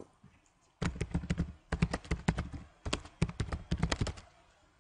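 Typing on a computer keyboard: several bursts of quick key clicks with short pauses between them.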